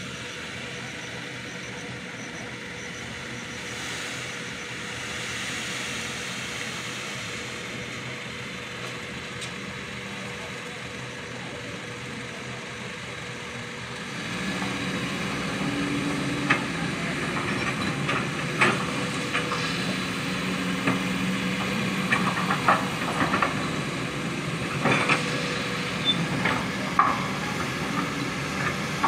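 Flowing river water over stones with a distant machine hum. About halfway in, a Kobelco excavator's diesel engine becomes louder, with repeated sharp clanks and knocks as it loads gravel and stones into a dump truck's bed.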